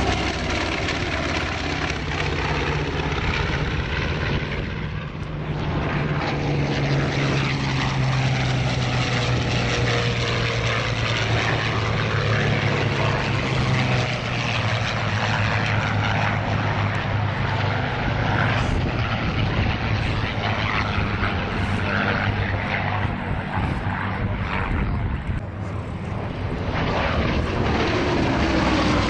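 Piston-engined WWII warplanes, among them a B-25 Mitchell bomber, making low fly-bys with a continuous propeller and engine drone. The engine pitch drops as an aircraft passes near the start and again near the end.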